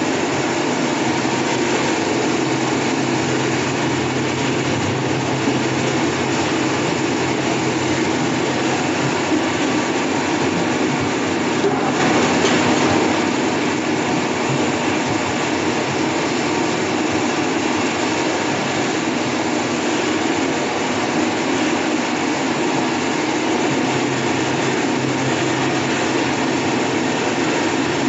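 Potato peeling and washing machine running steadily: a continuous mechanical noise with a low hum, briefly louder about twelve seconds in.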